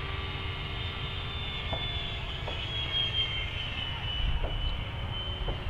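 E-Flite F-86 Sabre RC jet's electric ducted fan (3200kv E-Flite 15-size EDF) whining in flight, a high whine that slowly drops in pitch, over a steady low rumble.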